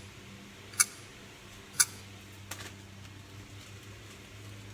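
Two sharp clicks about a second apart, then a softer click, over a steady low hum.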